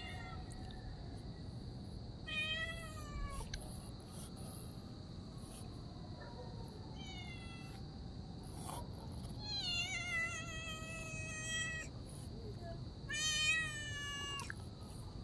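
Cats meowing: four separate meows a few seconds apart, the third long and drawn out.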